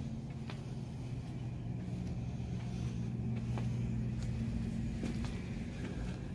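Carpet-cleaning extraction machine running at a steady low drone, with a few light clicks over it.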